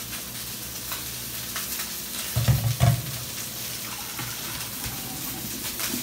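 Steady sizzle of chicken frying in a pan, with two dull knocks about two and a half seconds in. Boiled broccoli and its cooking water are poured from a saucepan into a stainless steel colander in a steel sink.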